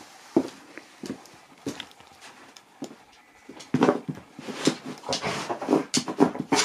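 A husky pawing and batting an Easter egg across a shaggy rug: a few separate soft taps and scrapes at first, then from about four seconds in a louder, busier run of dog noises.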